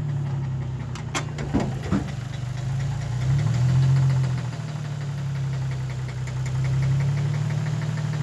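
2004 Infiniti G35's 3.5-litre V6 idling with a steady knock. The owner takes the knock for a rod knock or possibly a broken cam bearing, in an engine found low on oil. A few sharp clicks come in about a second in.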